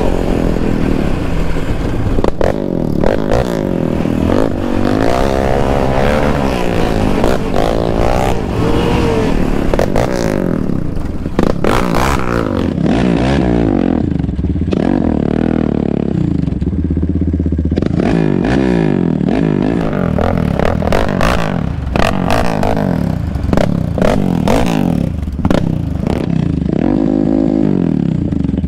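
Single-cylinder Yamaha Raptor ATV engines revving up and down over and over as the quads ride a dirt trail. Sharp knocks and rattles run through it.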